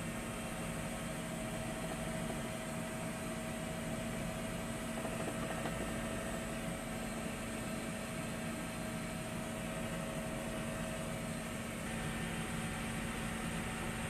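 Steady drone and hiss of a helicopter heard from inside its cabin, a constant engine-and-rotor hum with no breaks; the tone shifts slightly about twelve seconds in.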